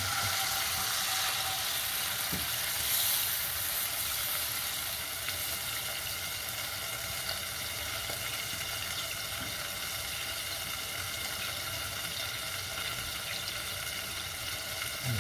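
Milk and water poured into a hot pan of sliced mushrooms frying in butter, hissing loudest for the first few seconds and then settling into a steady sizzle as the white sauce heats.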